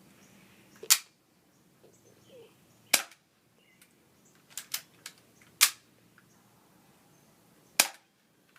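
Airsoft gun firing single shots, four sharp reports a couple of seconds apart, with a few fainter clicks between them.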